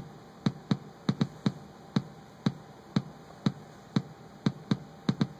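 Electronic kick drum pattern triggered over MIDI by a step sequencer and looping: a hit every half second, with a few extra off-beat hits squeezed in between.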